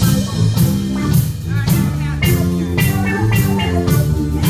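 Live soul band playing: drum kit and bass keep a steady beat, about two drum hits a second, with guitar over it.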